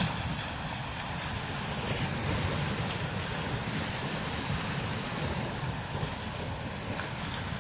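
Strong desert wind blowing steadily across sand dunes, a continuous rushing hiss over a low, fluttering rumble of wind buffeting the microphone.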